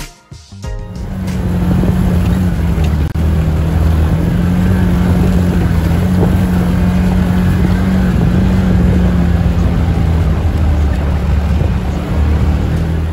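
Can-Am side-by-side on rubber snow tracks under way, heard from on board: a steady engine and drivetrain drone with a low hum, building up about a second in and then holding even.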